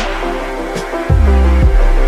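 Electronic dance music with sustained synth chords and a deep sub-bass that slides down in pitch twice. A cymbal-like hit falls in the middle.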